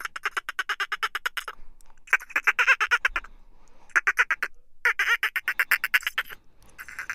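Squawking call of a giant winged monster creature: five bursts of rapid chattering pulses, about ten a second, each burst lasting about a second with short gaps between.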